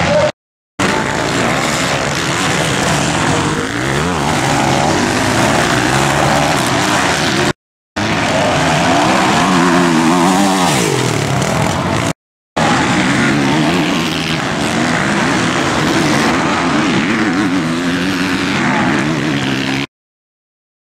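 Motocross bike engines revving hard, their pitch rising and falling as riders accelerate and back off through the turns. The sound drops out to silence for a moment four times, at cuts between clips.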